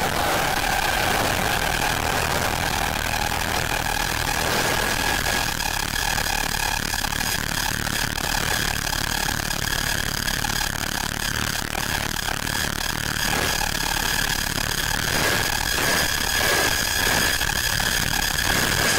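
Electronic drone: a dense, even, noisy hum with a sustained high tone. A lower tone fades out about five seconds in while several higher tones come in and grow stronger.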